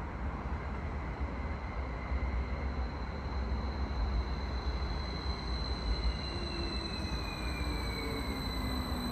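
Swiss SBB Stadler KISS double-deck electric train arriving and slowing, its traction whine falling in pitch from about six seconds in. Under it runs a steady high whine and a constant low rumble.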